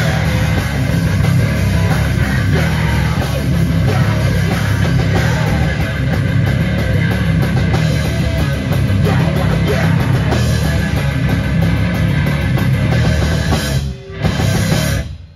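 Live metal band playing loudly, with drum kit and distorted electric guitars and bass. The music drops out briefly about fourteen seconds in, comes back for one short final burst, then stops suddenly.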